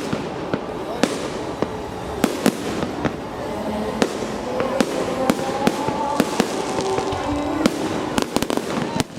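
Fireworks display: a dense, irregular string of sharp bangs and crackles from bursting shells, one after another, over a steady background of voices.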